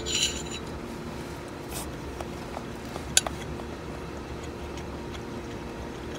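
A spoon clinking and scraping against a glass bowl of rice: a few short, light clicks, the sharpest about three seconds in, over a faint steady hum.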